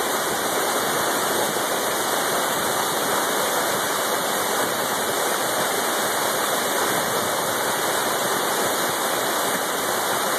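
Waterfall pouring down a narrow rock chute: a steady, even rush of falling water.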